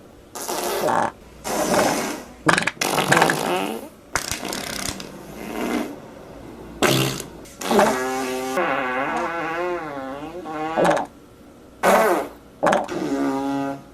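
A rapid string of fart sound effects, short and long, one after another. Near the middle comes a long fart of about three seconds with a wobbling pitch.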